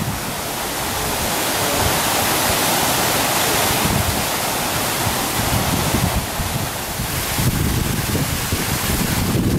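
Steady rushing noise, with wind buffeting the microphone in uneven low rumbles.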